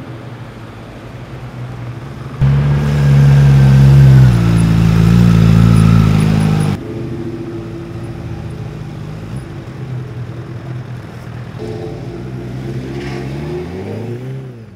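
Sport bike engine running as the bike rides by, with a much louder stretch of engine sound in the first half that starts and stops abruptly. Near the end the engine accelerates, its pitch rising.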